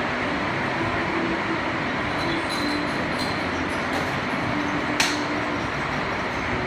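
Heavy rain falling steadily, with one sharp tap or click about five seconds in.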